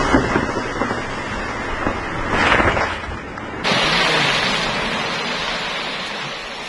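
A large tree falling from the far riverbank into the river: a sudden rush of splashing water about halfway through that slowly dies away, over wind on the microphone.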